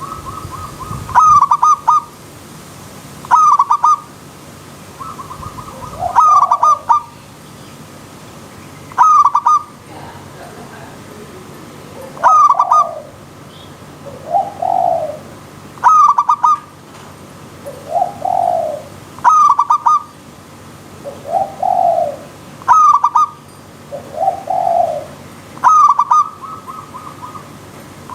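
Zebra dove (perkutut) cooing: a loud call phrase repeats about every three seconds. From about six seconds in, lower swooping coos fall between the phrases.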